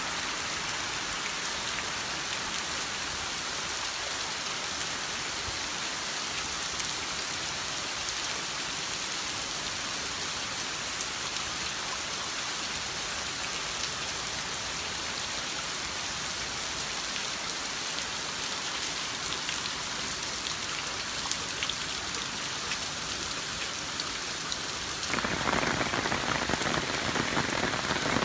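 Heavy typhoon rain pouring down steadily and splashing on the pavement. About 25 seconds in, it grows louder and fuller.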